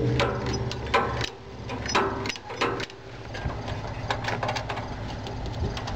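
Camera handling noise: rustling of the microphone against clothing, with scattered clicks and knocks throughout.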